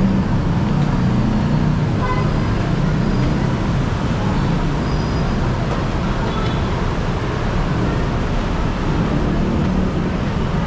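Steady, loud city traffic noise with engines running low, and a short horn toot about two seconds in.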